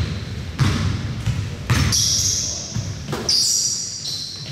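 A basketball bouncing on a hardwood gym floor in a few separate thumps, with short high sneaker squeaks on the court in the second half, echoing in the large hall.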